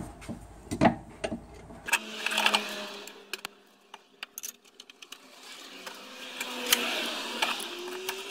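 Ratchet wrench clicking in quick, uneven runs as it turns a bolt on a van's front shock absorber mounting.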